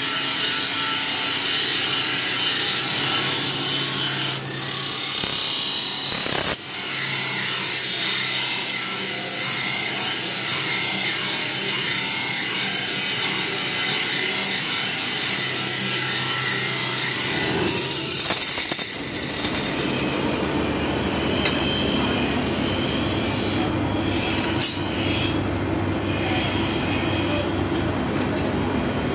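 Motor-driven grinding wheels grinding carbon-steel kukri blades: a continuous, loud abrasive grinding over a steady motor hum. The sound changes character a few times, with a brief dip about six and a half seconds in.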